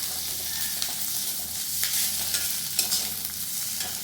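Onion, garlic and ginger paste frying in oil in a kadai, a steady sizzle, with a spatula stirring and making a few short scrapes and knocks against the pan.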